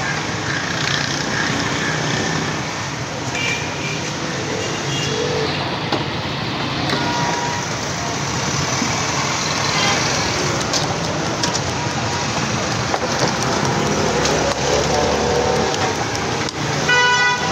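Egg batter pancakes sizzling in a large wok of hot oil, over steady roadside traffic noise and faint voices. A short, loud pitched beep sounds near the end.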